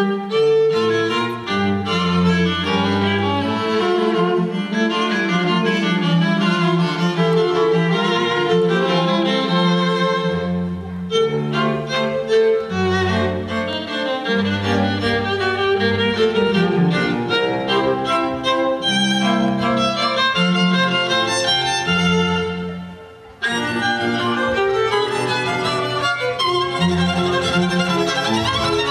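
Recorded string music led by violin, with cello and bass lines beneath, playing continuously. It dips in loudness and cuts back in abruptly about three-quarters of the way through.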